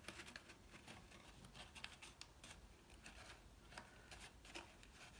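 Near silence with faint, scattered light ticks and rustles of cardstock pieces being handled and pressed together while glue sets.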